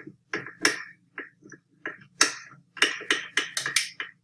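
A small screwdriver turning the fine-thread screws that hold the side plate on a Gtech AirRam's roller head: a run of sharp, irregular clicks and ticks, some in quick clusters.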